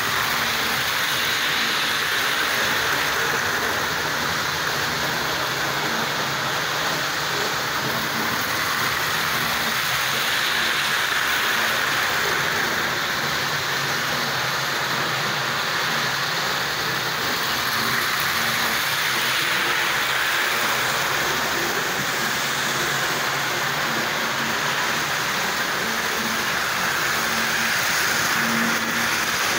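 Tri-ang model trains running round the layout's track: a steady whirr of small electric motors and wheels rolling on the rails.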